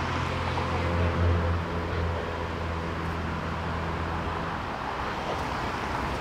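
A car engine running steadily with a low hum, over faint road noise; the hum fades out about four and a half seconds in.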